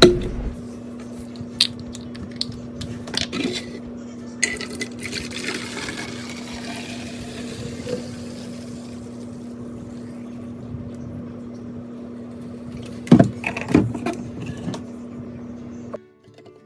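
Groceries and plastic storage containers being handled and set into a refrigerator: scattered clicks and knocks, a few seconds of steady hiss about five seconds in, and a cluster of louder knocks near the end, over a steady low hum.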